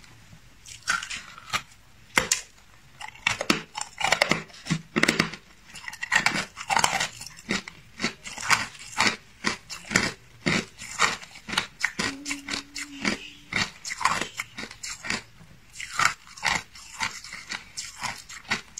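Hard clear ice being bitten and chewed close to the microphone: a dense run of sharp, irregular crunches and cracks.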